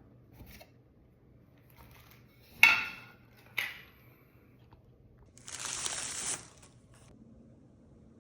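Parts of a coffee grinder being handled during unboxing: two sharp hard knocks a little under a second apart, then about a second of packaging rustling.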